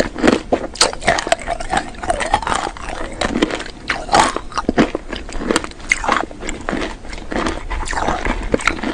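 Close-miked chewing of a mouthful of small hard candy beads, a dense run of crisp clicks and crackles as they break between the teeth.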